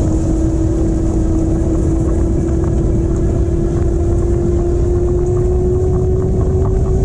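All-wheel-drive e-bike's electric hub motors whining in one steady tone that slowly rises in pitch as the bike speeds up, over a heavy low rumble of wind and road noise.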